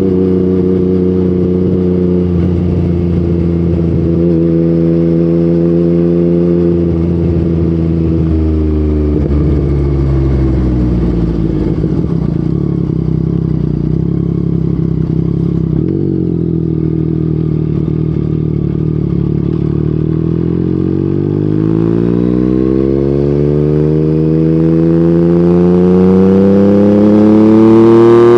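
Yamaha MT-09's inline three-cylinder engine through an Akrapovic exhaust, ridden on the road. It holds a steady speed at first, falls in pitch as the bike slows, runs low for a while, then climbs steadily in pitch from about two-thirds of the way through as the rider accelerates.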